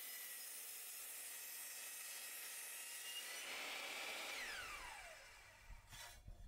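Bosch sliding miter saw running with a steady high whine while it cuts a wooden fence picket; about four and a half seconds in the trigger is released and the blade winds down with a falling whine.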